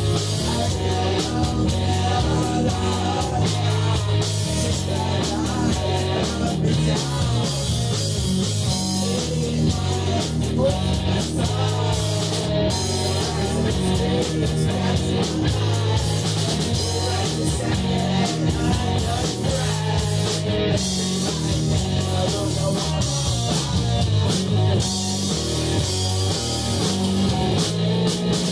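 Heavy rock band playing live: a singer over two electric guitars, bass and a drum kit with crashing cymbals, continuous and loud throughout. It is captured by a cell phone and an action camera in the room.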